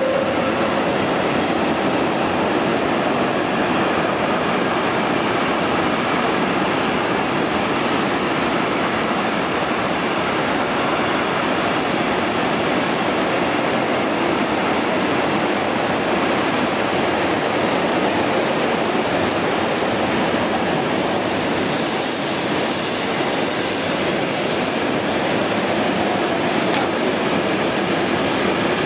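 Steam-hauled train running at speed: a steady, unbroken rolling noise of the wheels on the track.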